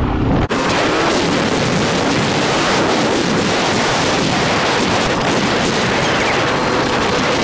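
ATV ride on a paved road at speed: a steady rush of wind over the microphone with the engine and tyres under it. About half a second in, the sound changes abruptly: the deep rumble drops away and the hiss turns brighter.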